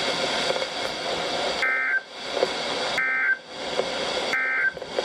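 NOAA Weather Radio's SAME end-of-message data bursts: three short, identical two-tone digital squawks about a second and a half apart, over radio hiss. They signal the end of the severe thunderstorm warning broadcast.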